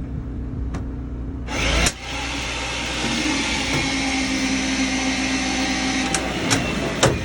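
A machine runs steadily with a low hum. It starts abruptly with a knock about a second and a half in and stops about six seconds in, followed by two sharp metallic clanks.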